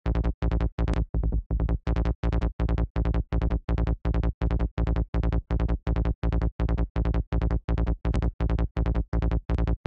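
KickNBassGel software synth playing a psytrance bass line in A sharp at 165 BPM: a fast, even run of short, deep bass notes from a distorted square wave.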